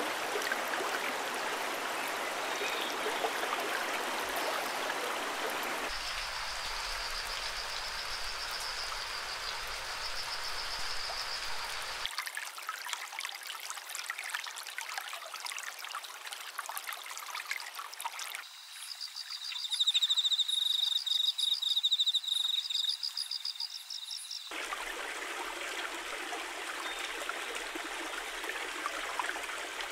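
Running stream water, cut together from several recordings that change abruptly about every six seconds. For several seconds a fainter high trill sounds over the water, and about two-thirds of the way through a loud, high, rapid trilling call takes over before the stream returns.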